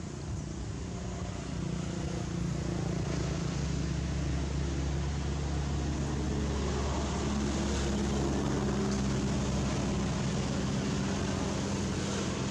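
Low, steady drone of a running engine, growing louder over the first couple of seconds and then holding.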